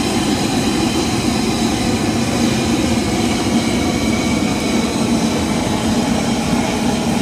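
Chapli kababs sizzling steadily in a wide pan of deep hot oil, over a low steady roar from the fire under the pan.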